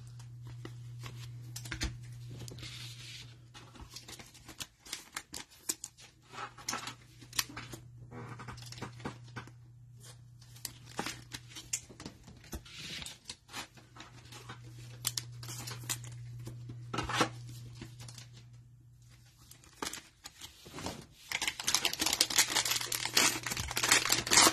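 Trading cards being handled and flipped, with scattered small clicks and flicks. About three seconds before the end, a plastic wrapper of a 2022 Mosaic football hanger pack being torn open, with louder tearing and crinkling.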